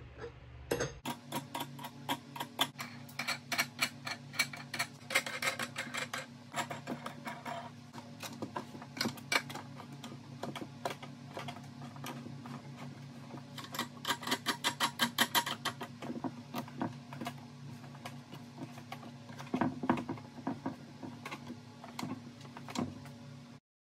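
Irregular metallic clicking and rattling in quick clusters, typical of wing nuts being run down threaded rods to tighten a makeshift press, over a steady low hum that cuts off suddenly near the end.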